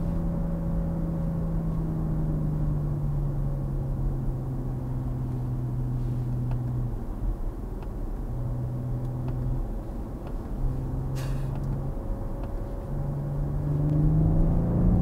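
BMW M340i's turbocharged 3.0-litre straight-six heard from inside the cabin with BMW Iconic Sounds switched on, the synthesised engine note played through the car's speakers. The drone drops in pitch a few seconds in, breaks off and returns several times, then rises in pitch and grows louder near the end.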